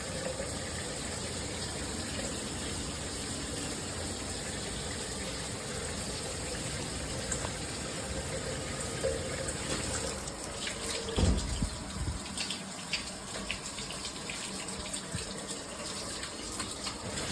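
Water spraying from a Hibbent all-metal shower head, a steady rush. About eleven seconds in there is a low thump, and after it the spray sounds more uneven and spattery.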